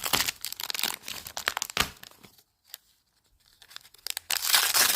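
Plastic packaging crinkling and tearing as a small accessory pack is opened by hand. It comes in two spells with a second or so of quiet between them.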